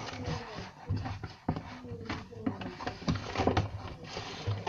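Slime and its plastic container being handled: irregular short sticky clicks and crackles, with faint murmured speech under them.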